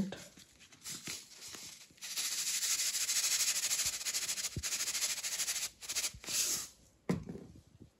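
Salt being dispensed over raw fish pieces: a fine, high rasping noise lasting about three and a half seconds from about two seconds in, followed by a couple of short brushing sounds.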